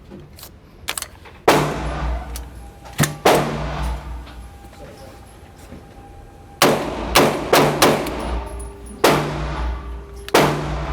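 Gunshots fired one at a time at irregular spacing, about nine in all, each followed by a long echo off the range walls. Small clicks of gun handling fall between them.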